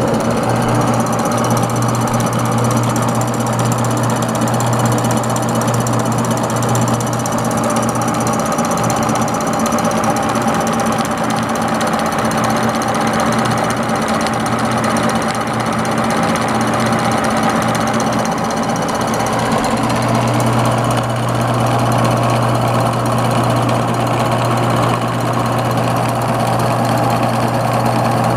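Ono Food Machinery OFM-1007 white-leek slicer running on a test run: its electric motor drives the rows of circular slicing blades with a steady, loud mechanical hum. The low part of the hum weakens for a while partway through, then comes back.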